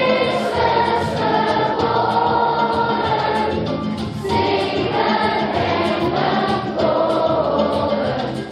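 Children's choir singing a Christmas song in long held notes over instrumental accompaniment, with a short break between phrases about halfway through.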